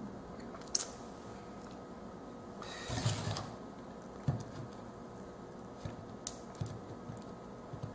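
Hands handling a PVC pipe and an LED module with its wires while fitting the module onto the pipe: scattered light clicks and knocks, with a brief rustle about three seconds in, over a faint steady hum.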